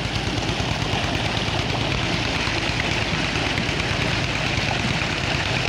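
Tube well water gushing from the discharge pipe and splashing into a brick tank. Beneath it the pump's drive runs with a steady, even low drone.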